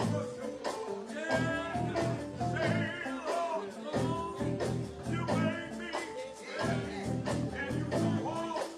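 Live gospel church band playing with a steady drumbeat under a wavering melodic line.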